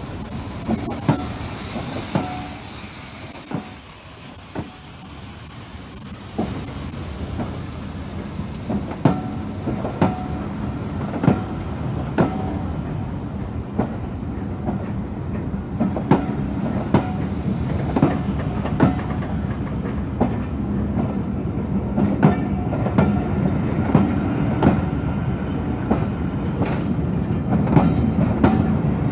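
Passenger coaches rolling past, their wheels clicking over the rail joints at a slow pace with a steady rumble. The clicks come about a second apart at first and closer together toward the end. A high hiss early on fades away by the middle.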